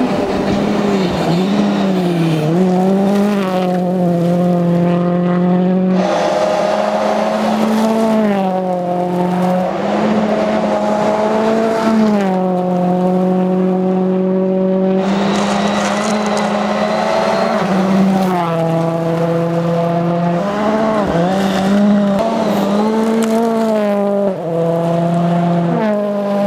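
Ford Fiesta rally car engine at full attack, revving hard. The pitch climbs and drops again and again through gear changes and lifts for corners, with some tyre noise.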